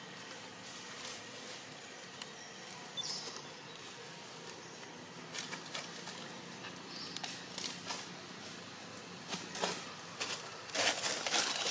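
Outdoor ambience with faint insect buzzing, a few faint high chirps and scattered small clicks and rustles that grow busier near the end.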